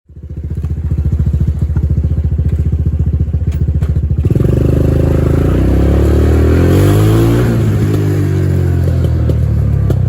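1990 Honda TRX200 ATV's single-cylinder four-stroke engine running at a steady idle for about four seconds. It then picks up revs, rises in pitch and settles back down as the throttle is worked.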